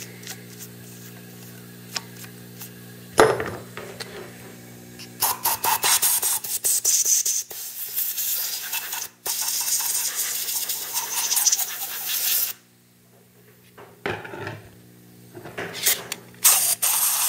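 Compressed-air blow gun blasting aluminium chips off a freshly machined plate: a long pulsing hiss starting about five seconds in and lasting some seven seconds, then shorter blasts near the end, over a steady low hum.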